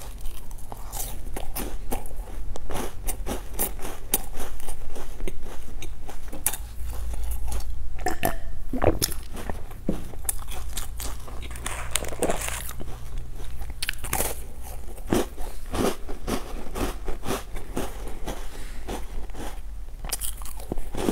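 Close-up crunching and chewing of crisp snacks, bite after bite, with many sharp, irregular crunches as the food breaks between the teeth.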